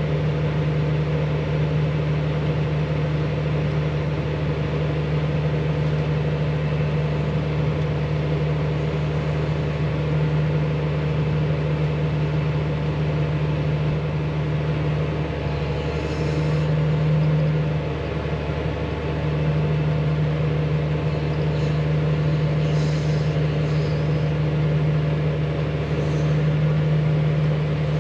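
Large diesel engine of harvest machinery running steadily at constant speed, a deep even drone that briefly drops and wavers about two-thirds of the way through.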